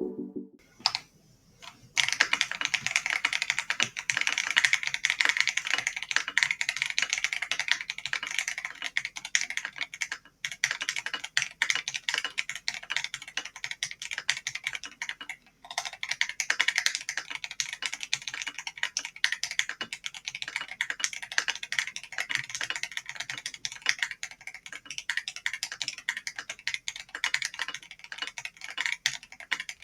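Enter80 custom mechanical keyboard with AKKO Starfish switches and AKKO LA keycaps being typed on quickly: a dense stream of key clacks that starts about two seconds in, with two brief pauses.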